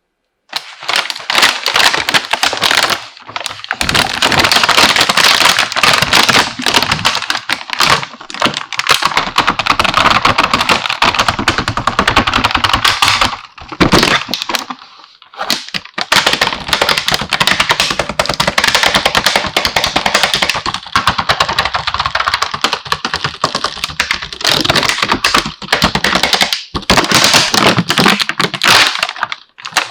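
Dense, rapid clicking and clattering of small hard plastic toy kitchen pieces being handled and unpacked, in long runs with a few short pauses.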